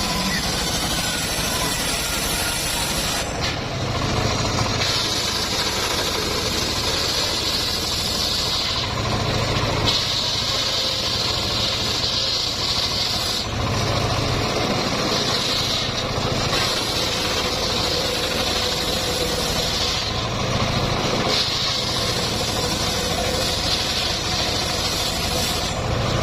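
Homemade engine-driven circular sawmill saw running steadily. A higher whine comes in for a few seconds at a time, about five times, as the blade cuts through teak.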